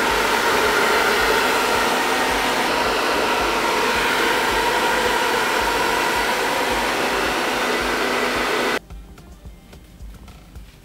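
Handheld hair dryer running on a steady blast, a rush of air with a motor whine, held close to the hairline to set freshly sprayed hairspray. It switches off suddenly about nine seconds in.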